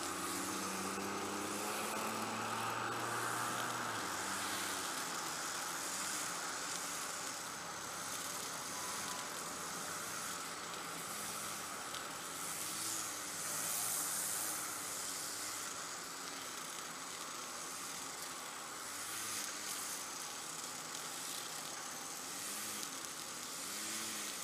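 String trimmers (weed eaters) running at a distance, their engine note rising and falling as they rev while cutting tall grass, over a steady hiss. A pickup truck passes on the road about halfway through, briefly louder.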